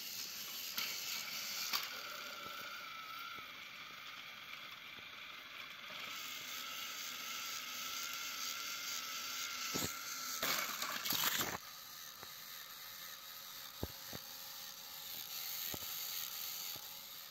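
Motorized Plarail toy train engines running: a steady whine of small motors and gears with a rattle of wheels on plastic track. Between about ten and eleven and a half seconds in comes a cluster of loud knocks and clatter as the engines shove each other off the track. Then the running is quieter, with a few sharp clicks.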